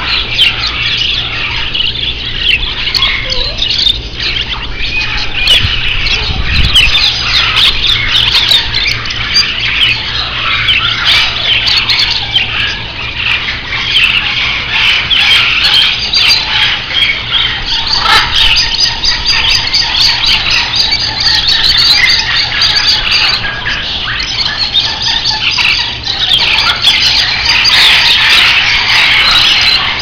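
A dense, unbroken chatter of many small caged parrots, budgerigars and lovebirds, chirping and squawking all at once.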